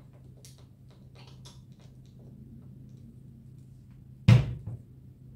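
A plastic body lotion bottle being handled. There are a few light clicks and rustles, then one sharp knock a little over four seconds in, with a smaller knock just after.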